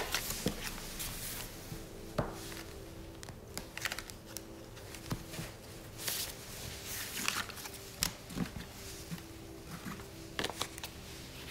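Tarot cards being handled on a cloth-covered table: scattered light clicks, taps and slides as the cards are squared and gathered up, a few sharper taps standing out.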